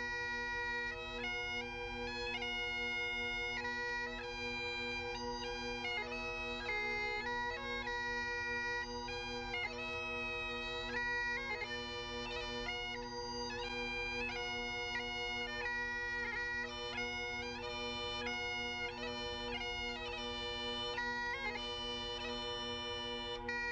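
Scottish Highland bagpipes played solo: steady drones held under a chanter melody that moves from note to note.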